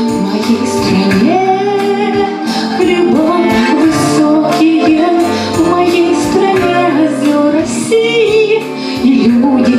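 A song: a female voice singing a melody over an instrumental backing track with bass.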